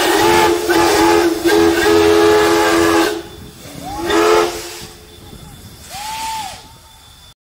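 Steam locomotive 5917's whistle sounding a series of loud blasts over a hiss of steam, the longest ending about three seconds in. A shorter blast follows about four seconds in, and a fainter, higher note near the end.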